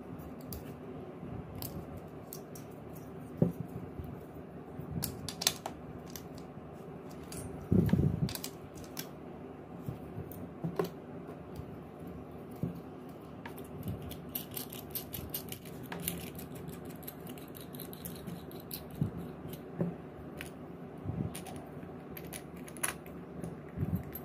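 Scattered small clicks and metallic clinks of a homemade coil-winding jig being taken apart by hand: the nut and bolt loosened and the plywood flanges pulled off the freshly wound coil, with a louder knock about eight seconds in. A faint steady hum runs underneath.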